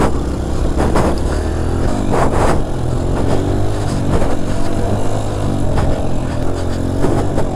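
Dirt bike engine running under throttle while being ridden, its revs rising and falling several times.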